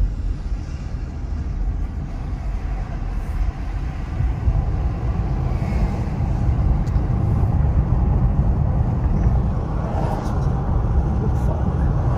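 Steady low rumble of a car on the move, heard from inside the cabin: engine and tyre noise on wet pavement, growing a little louder about halfway through.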